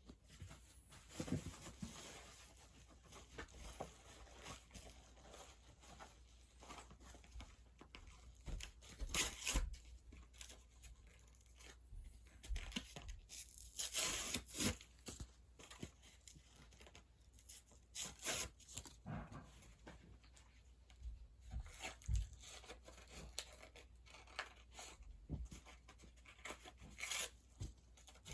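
Product packaging being torn open and handled by hand: irregular ripping, rustling and crinkling, in short and longer bouts throughout.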